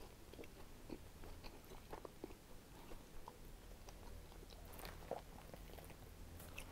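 Faint sounds of a person chewing a mouthful of thick-crust pepperoni pizza: soft, irregular small clicks.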